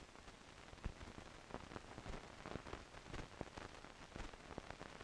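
Faint steady hiss with irregular crackles and pops: the noise floor of an archival film transfer with no recorded soundtrack.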